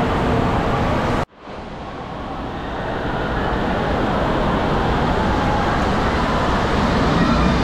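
Steady din of an indoor waterpark: rushing water from the slides and pools mixed with distant crowd noise. It cuts off abruptly about a second in and fades back up to the same steady level.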